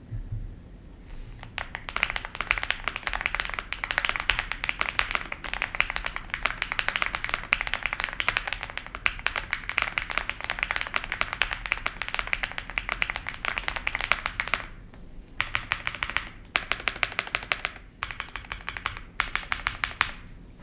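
Typing on a Chilkey ND75 mechanical keyboard with WS Dopamine Blue linear switches, a polycarbonate plate and PBT keycaps. Fast, continuous keystrokes start about a second and a half in, then break into four shorter bursts with brief pauses between them.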